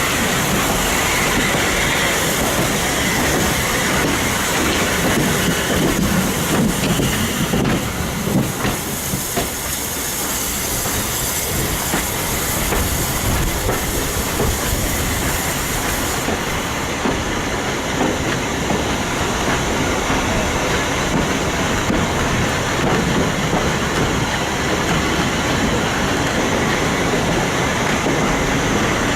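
Steam-hauled heritage passenger train running slowly along the line: a steady rumble with the wheels clicking over the rail joints.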